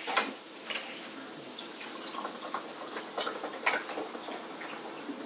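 Quiet table sounds of people eating pasta: scattered light clicks of chopsticks and forks against plates, with soft wet mouth sounds. A faint steady hum runs underneath.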